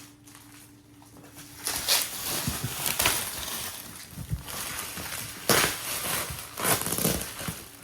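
Gift wrapping being torn open and crumpled by hand, in a string of rustling, crackling bursts starting about two seconds in.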